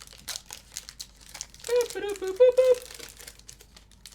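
Foil Pokémon card pack wrappers crinkling and rustling. About halfway through, a voice hums or sings a few short notes, dipping in pitch and coming back up; this is the loudest sound.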